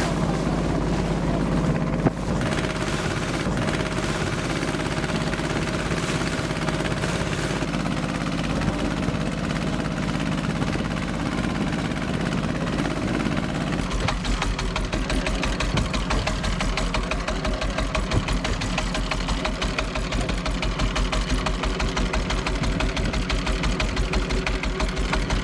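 Small inboard diesel engine of an open fishing boat running steadily under way. About halfway through, its knock comes through louder and sharper as a fast, even beat.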